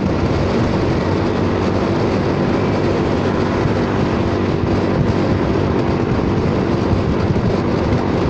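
Honda Forza 300 scooter's single-cylinder engine running at a steady cruise, heard on board under steady wind and road noise. The exhaust runs quiet with no howl; the rider takes its hinged flap to have shut, choking the exhaust.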